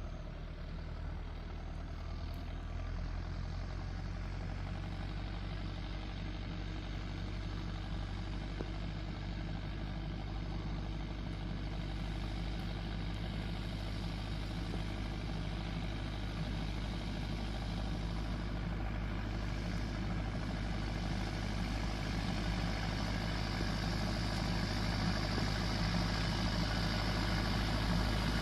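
Tractor engine running steadily with a low hum and mechanical clatter, growing gradually louder.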